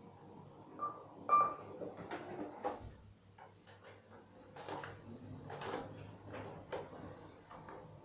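Kone lift car-panel push button being pressed and tapped over and over, a string of plastic clicks and knocks, with two short beeps about a second in as the call for floor 5 registers. A low steady hum runs underneath.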